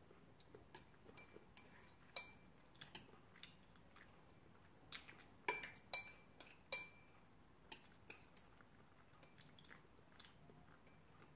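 Faint eating sounds of a bowl of ramen: chopsticks tapping and clinking against the bowl, with soft chewing and mouth clicks. The sharpest clinks come in a cluster around the middle.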